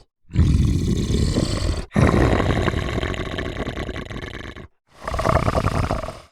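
Monster roar sound effects: three rough roars one after another, the second the longest and fading away.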